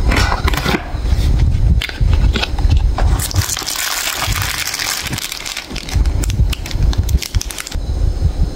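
Cardboard carton of Cadbury Shots chocolates being torn open by hand, with dull handling bumps. About three seconds in, a long stretch of dense crinkling and tearing of cardboard and plastic wrappers starts. It stops shortly before the end.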